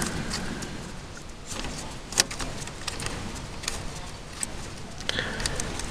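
Quiet handling noise with a few light clicks, the sharpest about two seconds in, as a thin metal rod is worked against a grease nipple on an MTZ-80 tractor's front axle housing.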